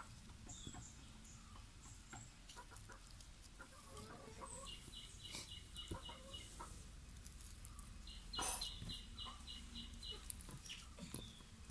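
Domestic chickens clucking faintly, with a bird's high, rapid series of repeated notes, about five a second, heard twice. A single sharp knock comes about eight and a half seconds in.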